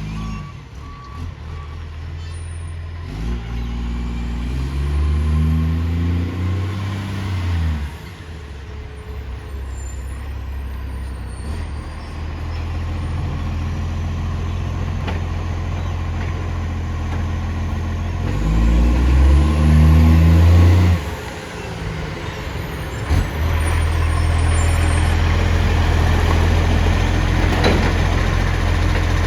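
Heavy vehicle's diesel engine with a loud exhaust leak, idling and revving up twice: once about three seconds in and again near eighteen seconds, each rev falling back to idle. A reversing beeper sounds briefly at the start.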